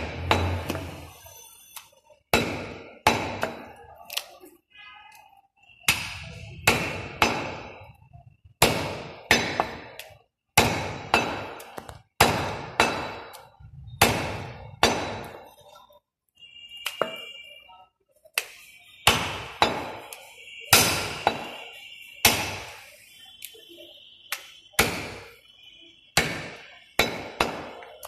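Heavy cleaver chopping goat leg meat on a wooden stump chopping block: sharp chops in quick runs of two or three, with short pauses between.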